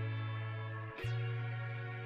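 Background music: held chords over a deep bass note, with a new chord struck about a second in.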